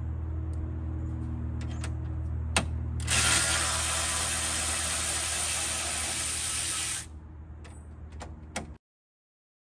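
Power ratchet spinning a radiator support bolt out for about four seconds, with small clicks of the socket and tool before and after it. A steady low hum sits underneath, and all sound cuts off abruptly near the end.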